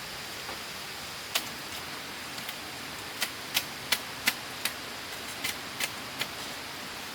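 Sharp knocks or taps, one alone and then a run of about eight at two to three a second, over a steady rush of running water.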